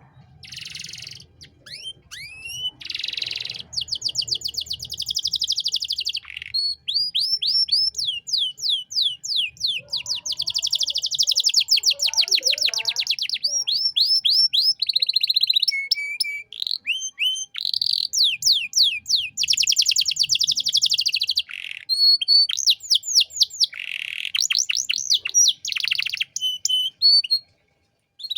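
Domestic canary singing a long, varied song of fast rolling trills and rapid repeated notes, broken by brief pauses and a few falling whistled notes: the vigorous, richly varied song used as a tutor song for training other songbirds.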